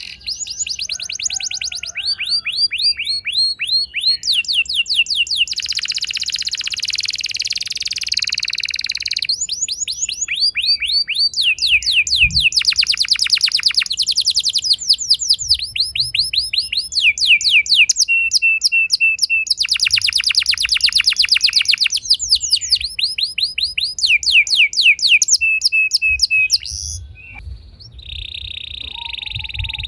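Domestic canary singing a long song of fast trills, rolling one rapid repeated note for a second or two and then switching to another. There is a short, quieter break near the end before the song resumes.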